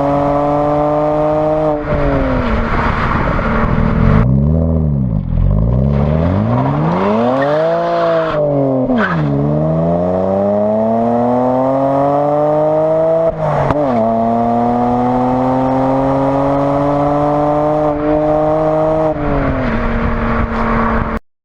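Stock BMW E92 335i with the N54 twin-turbo straight-six and unmodified exhaust, pulling hard. The engine note climbs in long rising sweeps and drops sharply at each gear change, several times over, then cuts off abruptly near the end.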